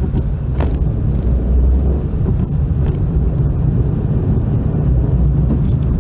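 Steady low rumble of a car's engine and tyres heard inside the cabin while driving, with a few scattered faint ticks.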